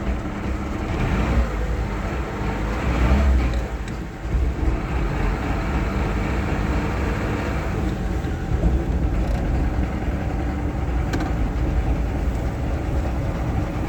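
Lada Niva engine and drivetrain running in first gear with the car jacked up and the wheels spinning freely, with a knock coming from the gearbox area. The owner cannot tell what is causing it. The sound swells about a second in and dips briefly around four seconds in.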